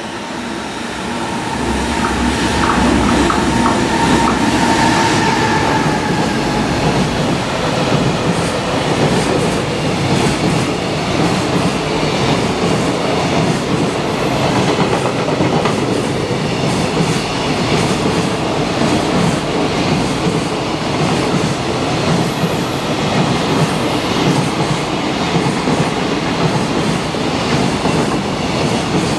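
Container freight train hauled by an electric locomotive passing close at speed. It swells in over the first two seconds with a whining tone that falls slightly, then a long run of container wagons rumbles past with a steady clatter of wheels on the rails.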